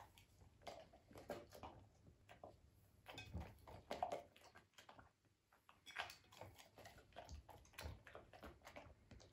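A Belgian Malinois puppy mouthing and chewing at a cherry tomato on a plate: an irregular run of small wet clicks and smacks, with a short lull about five seconds in.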